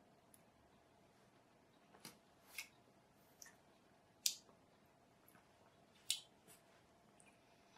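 Near silence over a faint steady room hum, broken by a handful of short, faint wet clicks and smacks from a mouth working a sip of whisky.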